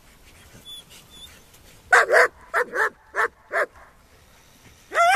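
Rottweiler puppy barking during tug-of-war play over a ball toy. A quick run of about five short, high barks starts about two seconds in, and another comes at the very end.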